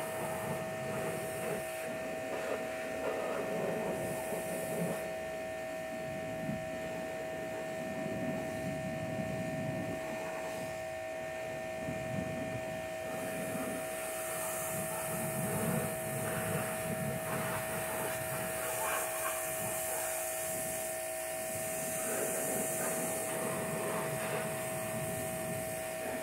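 Pressure washer running with a steady whine, its spray hissing on and off while mud is washed off a side-by-side.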